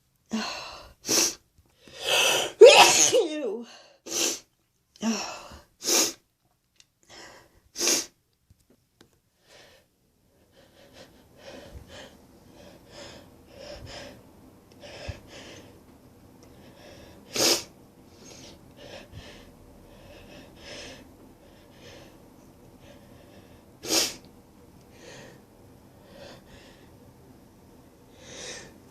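A woman sneezing repeatedly: a quick run of sharp sneezes over the first several seconds, then quieter sniffs and breaths as the next sneezes build, broken by two more single sharp sneezes later on.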